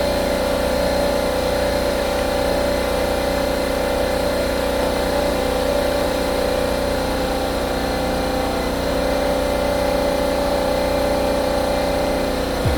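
A motor-driven machine running steadily, with an even hum that does not change.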